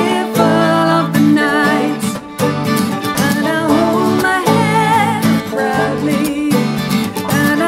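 Live acoustic folk music: an acoustic guitar and a banjo play over steady held chords, with a melody carried above them, wavering with vibrato.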